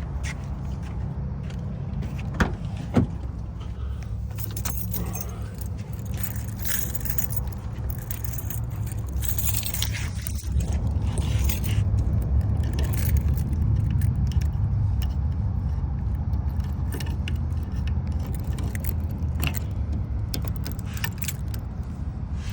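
Keys and metal lock-picking tools clinking and scraping at a car door lock, with two sharp clicks about two and a half and three seconds in, over a steady low rumble.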